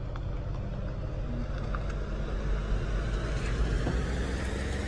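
Car engine running as the car creeps forward over asphalt: a steady low rumble with an engine hum, growing slightly louder.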